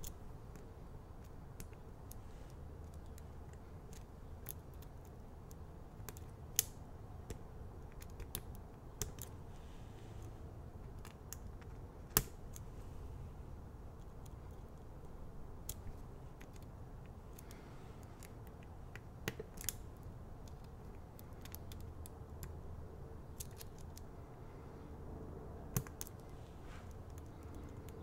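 Lock picks working the pins of a tubular bike lock: small, irregular metallic clicks and ticks, a few sharper than the rest, over a low steady hum.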